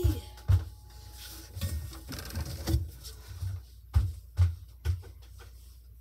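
Soft footsteps on a floor: about six dull, irregular thuds.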